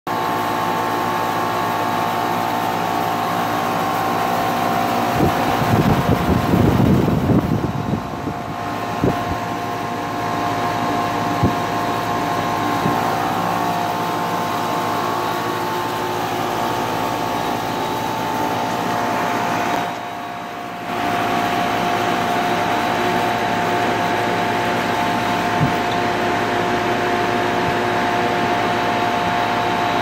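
2001 Carrier 5-ton straight-cool air conditioner's outdoor condensing unit running: a steady hum from the fan with several steady tones over it. A brief low rumble comes about six seconds in.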